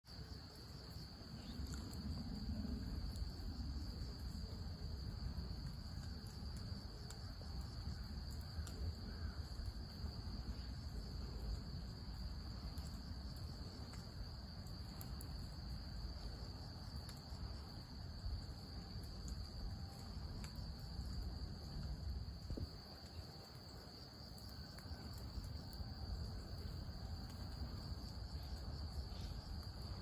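Insects singing in one steady high-pitched drone that never breaks, over a low outdoor rumble.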